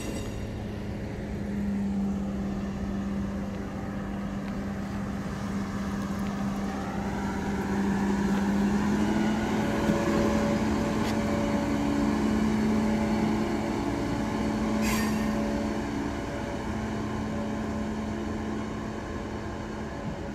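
Engine of a yellow self-propelled track maintenance vehicle running steadily as it passes on the rails, growing louder as it goes by in the middle and easing off toward the end. One sharp click about 15 seconds in.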